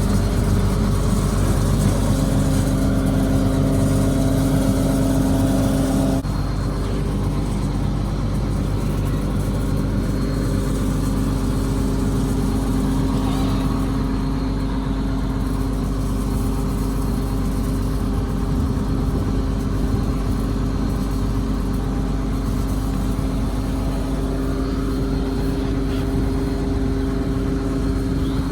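Combine harvester running steadily, its engine and threshing machinery giving a continuous drone with several steady tones. About six seconds in it gets slightly quieter and some of the higher tones drop away.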